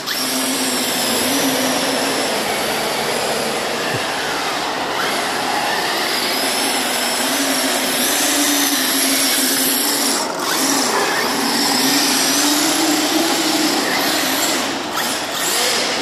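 Losi RC truggy's electric motor whining under the load of towing an 85 kg man on a wheeled board, its pitch wavering slightly with throttle. The board's small wheels rumble over the concrete floor underneath it.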